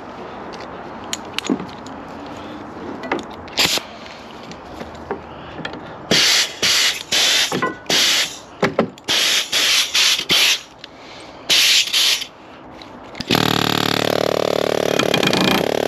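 Pneumatic air hammer fired in a string of short bursts, each about half a second, then run steadily for the last couple of seconds, hammering at a rust-seized Jeep JK ball joint to break up the rust. Light clinks of handling come before it.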